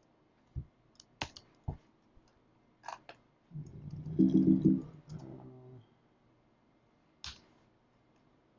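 A few single computer keyboard keystrokes, spaced out, as text is typed into a terminal editor. About halfway through, a louder low pitched sound lasts about two seconds.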